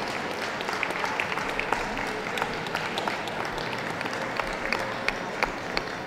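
Audience applauding steadily, with many separate sharp claps standing out.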